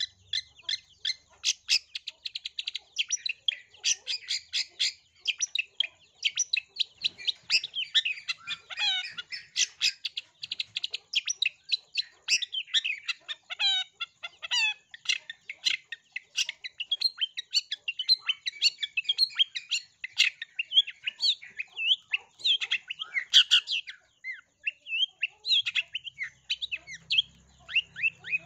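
Long-tailed shrike singing a long, fast, varied song of sharp chirps and rapid trills with barely a pause, including mimicked Eurasian tree sparrow chirps.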